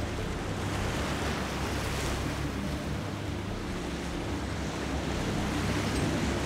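Pontoon boat under way: its motor running with a steady low hum beneath the rush of water past the hull and wind buffeting the microphone.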